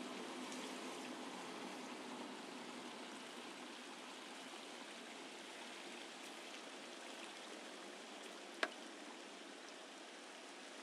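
Steady hiss of road and traffic noise from a car driving through city streets, with one sharp click about eight and a half seconds in.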